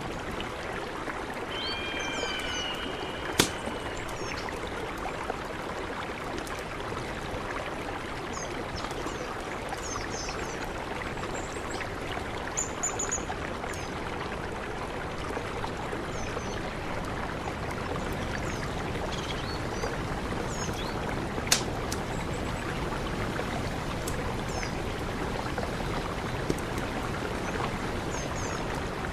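Mountain river rushing steadily, with small birds chirping now and then over it. Two sharp clicks stand out, one a few seconds in and one past the middle.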